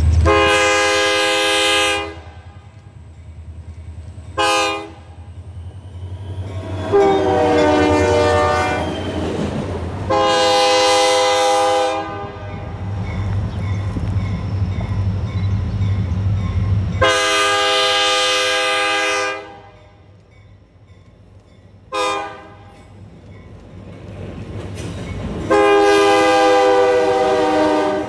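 Freight diesel locomotive's air horn blowing grade-crossing signals: a long blast, a short one, two longs, then the standard long, long, short, long. A low diesel engine rumble runs under the first half.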